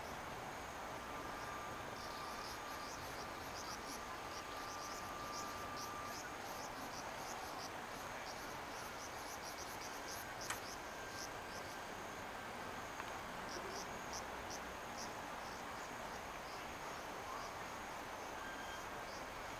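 Insects chirping in quick, repeated high-pitched pulses over a steady background hiss, with one short sharp click about halfway through.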